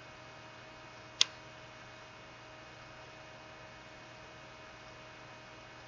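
Faint steady mains hum and hiss, with one sharp click about a second in.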